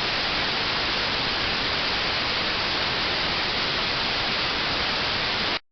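Steady hiss of broadcast static after the station's signal drops off the air, which ends abruptly near the end in dead silence.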